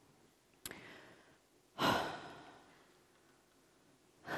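A person breathing out audibly into a microphone: a small click just under a second in, then one breathy sigh about two seconds in, and a fainter breath near the end.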